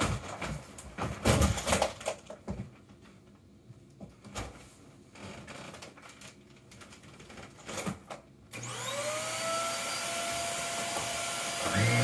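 Knocks and bumps of handling for about eight seconds. Then a vacuum cleaner switches on about eight and a half seconds in, and its motor spins up to a steady whine. Near the end it gets louder, with a deeper hum under it.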